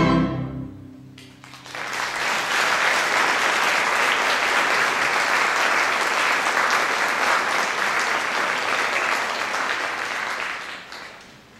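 A string orchestra's closing chord rings out and is cut off, then an audience applauds for about nine seconds before the clapping fades away.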